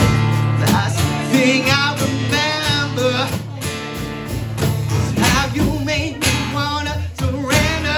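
Live acoustic guitar strumming with a man singing, backed by a snare drum.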